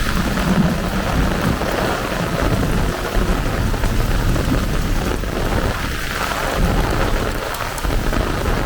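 Heavy rain pouring steadily, with a low rolling rumble of thunder underneath.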